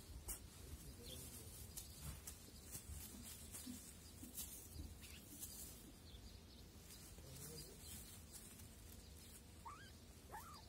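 Faint rustling and soft scuffing of two kittens play-wrestling on a cloth and grass, with two short rising chirps near the end.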